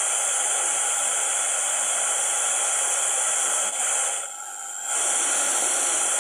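Philips RR-498 boombox radio giving steady static hiss between stations while it is tuned, briefly quieter about four seconds in.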